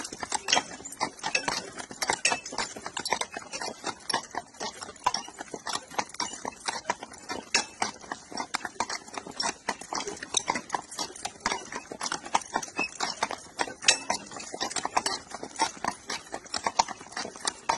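Hooves of a harnessed pair of mules clip-clopping on a paved road, a quick, steady run of sharp strikes.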